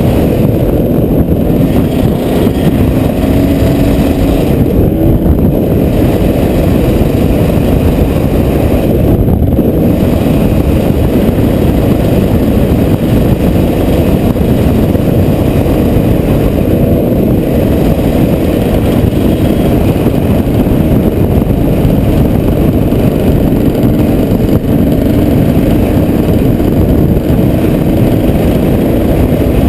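Strong wind of a dust storm buffeting the microphone: a loud, steady, low rumble with no letup.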